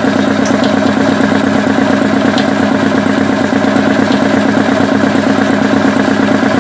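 Electric tank air compressor running steadily under load with a fast, even pulsing beat as it pumps the tank up toward the 7 kg/cm² cut-off just set on its pressure switch.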